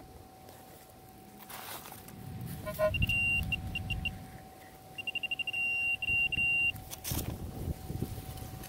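Metal-detecting pinpointer probing a dig hole, sounding its high-pitched alert twice: a tone that breaks into quick pulses about three seconds in, then rapid pulses running into a steady tone about five seconds in, meaning metal is right at the tip. Soil and roots rustle around it.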